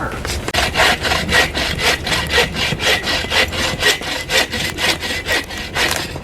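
Hand saw cutting wood in quick, even strokes, about three to four a second.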